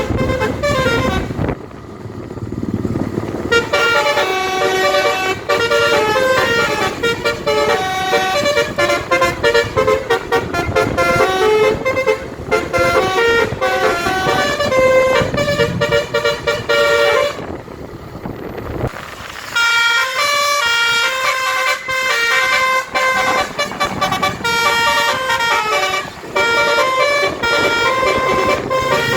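A bus's basuri telolet musical air horn playing a tune in quick, stepping notes, over the bus's engine and road noise. The tune breaks off briefly twice.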